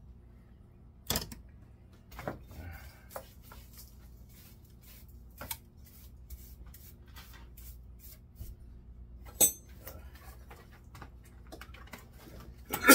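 Irregular clicks and knocks of hard objects being handled, over a low steady hum. About nine seconds in comes a sharp click that rings briefly, and a louder knock falls right at the end.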